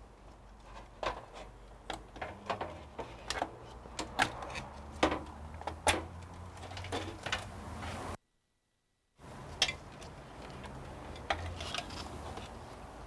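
Irregular light clicks, taps and knocks of hands handling computer parts and hardware while a water cooler is removed from a PC, over a low steady hum. The sound cuts out completely for about a second a little past the middle.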